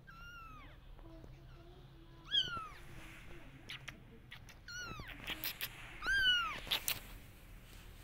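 Persian kitten mewing four times: short, high-pitched cries that rise and then fall in pitch. A few sharp clicks fall between the cries.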